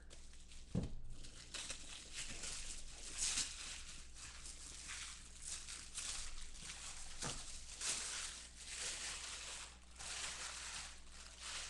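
Tissue paper crinkling and rustling in irregular bursts as it is unwrapped by hand from a plastic-slabbed trading card, with a soft knock about a second in and another near seven seconds.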